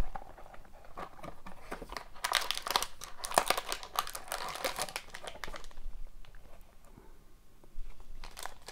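Hockey card pack packaging being opened by hand: the wrapper crinkling and tearing in bursts of rustling, busiest in the middle, easing off, then starting again near the end.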